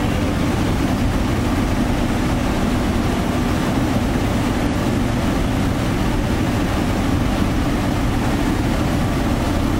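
ED76 AC electric locomotive standing at the platform with its machinery running: a steady, loud mechanical drone with a low hum that holds unchanged throughout.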